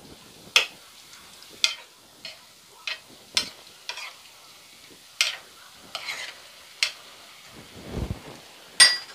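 Raw prawns frying in oil in a non-stick pan, a faint steady sizzle broken by sharp crackles and taps every half-second to a second as the prawns are turned with a spatula. Near the end comes a short ringing clink.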